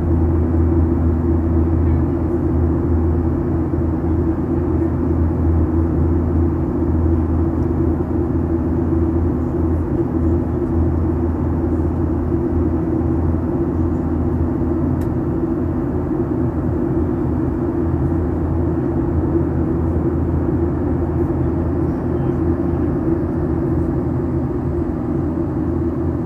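Steady drone of an airliner's engines and rushing air heard inside the cabin during the climb after takeoff, with a deep hum and a lower-mid tone over a constant rush.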